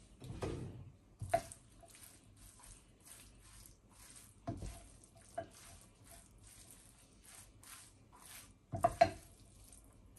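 Silicone spatula stirring and tossing a cabbage, noodle and minced-chicken filling in a nonstick frying pan: soft scraping and rustling strokes with a few louder knocks against the pan, the loudest near the end.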